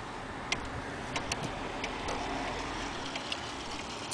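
Gustav Becker pendulum wall clock ticking, a series of light clicks over a faint steady hiss.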